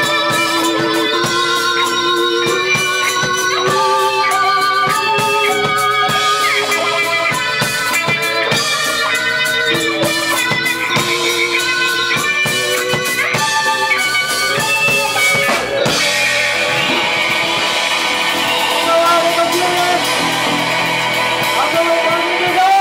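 Live band playing an up-tempo instrumental mod-jazz groove: electric organ chords and melody with vibrato over electric guitars and a drum kit. About two-thirds of the way through, the bass drops away and a wash of cymbals and organ takes over.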